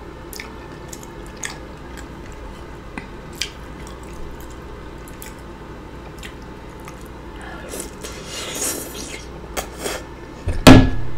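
Eating sounds: scattered small smacks and clicks of chewing and utensils, a breathy hiss a little past the middle, then one loud, sudden noise from the eater's mouth or throat near the end, an outburst she reacts to as not cute.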